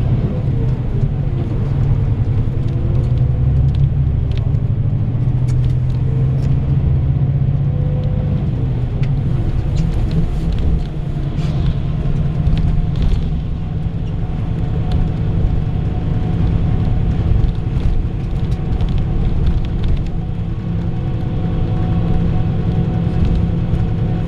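Bus engine and road noise heard from inside the cabin while the bus drives along: a steady low drone, its engine tones shifting slightly in pitch, with occasional light clicks and rattles.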